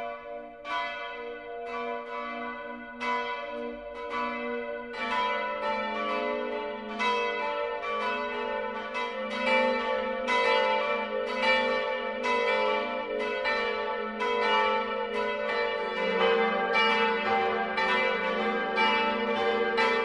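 Church bells ringing in a peal, one struck bell after another, each ringing on. The strikes come about once a second at first, then about two a second from roughly five seconds in.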